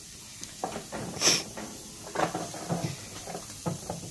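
Meat laid by hand onto hot gas-grill grates beside burger patties: a few brief sizzles and light knocks, the loudest a short hiss a little over a second in.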